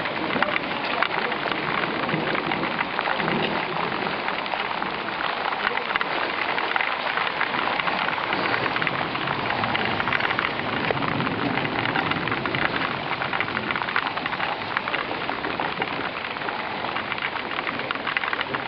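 Heavy rain pouring down steadily, a dense patter of drops on hard surfaces.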